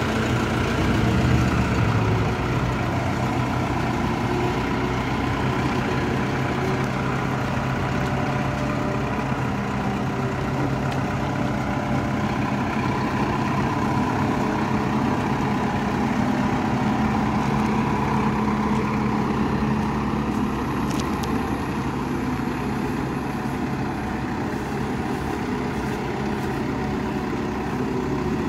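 Diesel engine of a 2009 TCM FD70-2 forklift running steadily as the forklift drives slowly, growing a little fainter near the end as it moves away.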